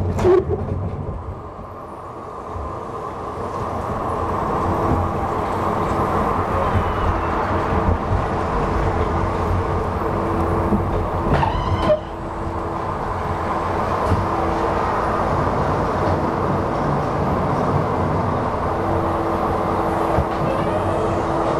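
L&T Systems compact roller coaster train running along its steel track, heard from the front seat: a steady wheel rumble with a faint humming tone that comes and goes.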